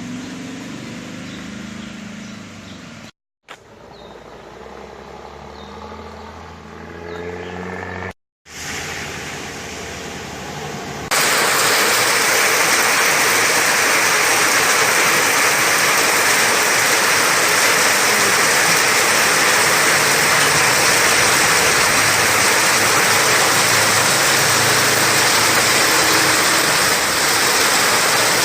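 A motor vehicle's engine running in the first few seconds, rising in pitch, broken by two abrupt cuts; then, from about eleven seconds in, a loud steady rush of fast-flowing water, like a swollen stream.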